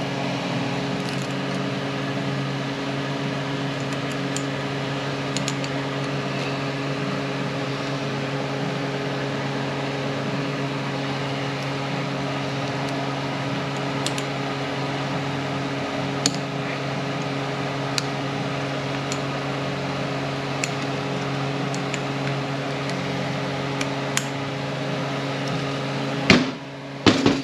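Steady mechanical hum from shop equipment such as a fan, with a few light clicks scattered through it. Near the end come a couple of louder clicks and the hum drops away.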